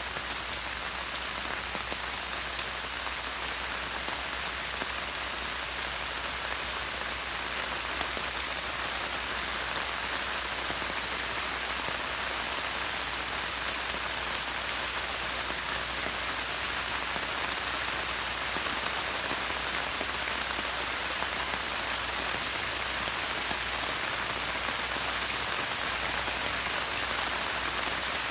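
Steady rain pattering, an even hiss of falling drops with no let-up.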